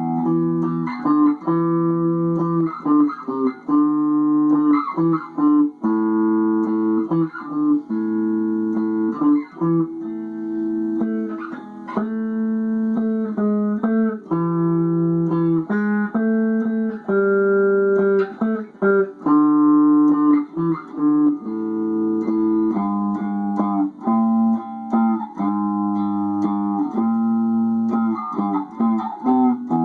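A guitar playing a run of chords, each one struck and left to ring for a second or two before the next.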